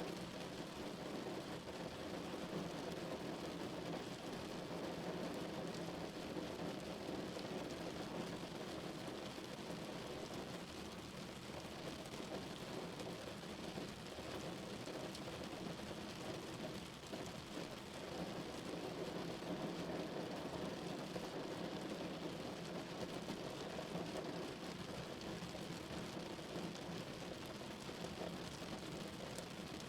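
Steady rain falling on a car's roof and windows, heard from inside the car, even and muffled with no pauses.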